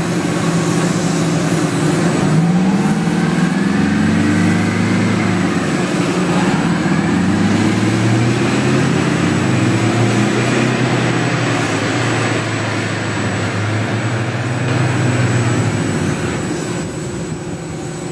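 Heavy diesel engines of P-23 airport crash tenders running hard, their pitch rising and falling as they rev, most clearly about two seconds in. Under them is a steady rushing noise.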